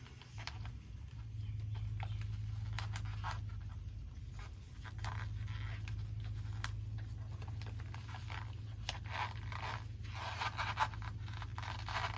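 Aluminum foil tape being pulled off the roll and pressed around a packed exhaust baffle: irregular scraping, crinkling and tearing with sharp clicks, busiest in the last few seconds.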